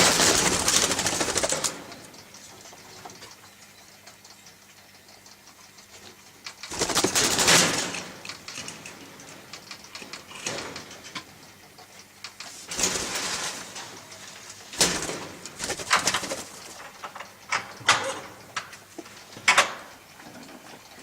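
Eastern rosellas fluttering about an aviary: a string of noisy flurries of wingbeats and scuffling. The two loudest come at the start and about seven seconds in, followed by shorter, sharper ones near the end.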